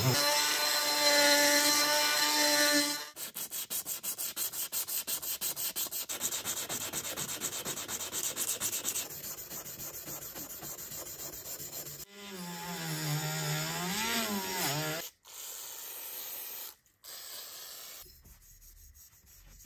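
A rotary tool spinning a brass wire brush on the blowtorch tank's metal filler neck, with a steady whine. About three seconds in this gives way to hand scrubbing of the metal tank with an abrasive pad, in even back-and-forth strokes about four a second. Later there is a brief whine that rises and falls, then quieter rubbing with a cloth.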